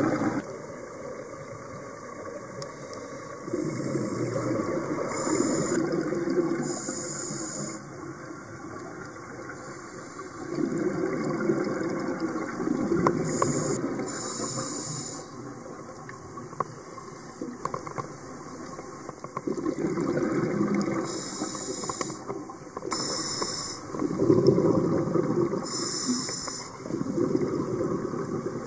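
Scuba diver breathing through a regulator underwater: short hissing inhales alternating with longer gushes of exhaled bubbles, about five breaths.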